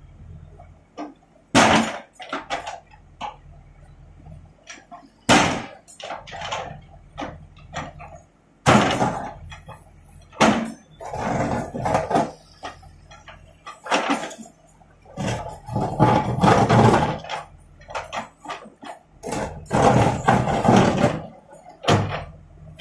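Backhoe loader's diesel engine running steadily while its steel bucket digs through broken concrete and rubble: a few sharp, loud knocks of the bucket striking concrete, and longer stretches of rubble and soil scraping and clattering as the bucket drags and lifts.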